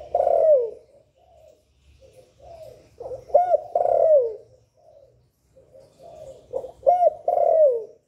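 Spotted dove cooing its song. The end of one phrase falls at the start, then two more phrases follow about three and a half seconds apart. Each phrase is a few short coos ending in a long, falling coo.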